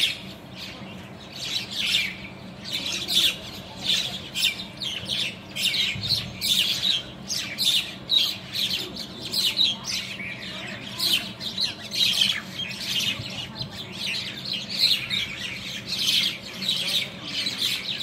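A flock of common mynas calling, many short calls overlapping without a break.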